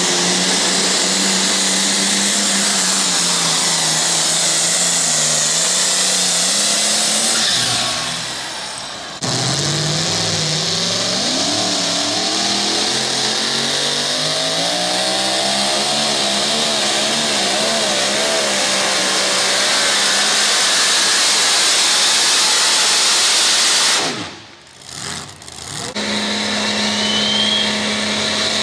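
Tractor-pull engines running hard under load in a series of cuts, first a modified pulling tractor and then pulling pickup trucks. The engine note sags and then climbs as they pull. The sound drops out briefly at each cut, about eight seconds in and again about twenty-five seconds in, and after the second cut an engine runs at a steady pitch.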